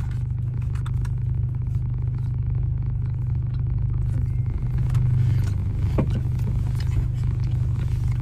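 Car engine idling, a steady low hum heard inside the cabin, with faint scattered clicks and rustles.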